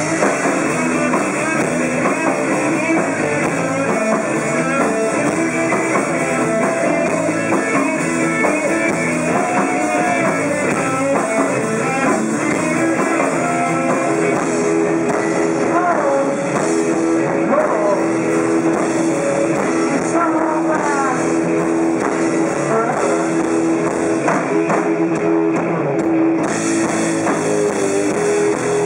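Live rock band playing: electric guitar with bending, gliding notes and held notes over a drum kit.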